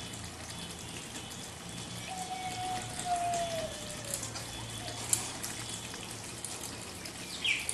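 Quiet kitchen sounds: a low steady hiss with faint scattered ticks, and a thin whistle lasting about two seconds that falls slightly in pitch around the middle.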